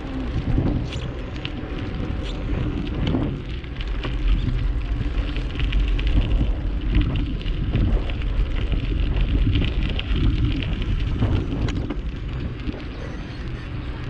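Wind rushing and buffeting over the microphone of a camera on a moving bicycle, rising and falling in gusts, with small clicks and rattles from the ride.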